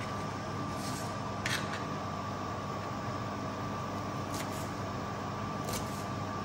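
A few sharp taps of a paring knife cutting through spring onions onto a plastic cutting board, over a steady mechanical hum.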